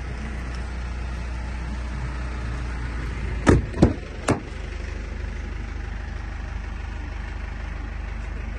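Mitsubishi L200's 2.2 DI-D diesel engine idling as a steady low hum. About three and a half seconds in there are three sharp clicks as the rear door handle is pulled and the door unlatches.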